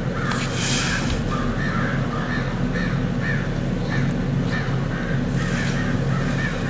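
A bird calling over and over in a steady series of short notes, about three a second, over a steady low hum.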